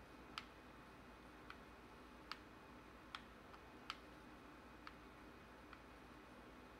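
Xbox controller buttons clicking as they are pressed: about eight short, faint clicks at irregular intervals, over a near-silent room with a low steady hum.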